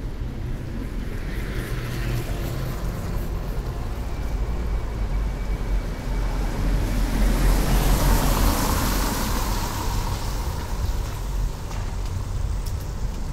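Street traffic ambience: a vehicle passes close by, its noise swelling to a peak about eight seconds in and then fading, over a steady low rumble of city traffic.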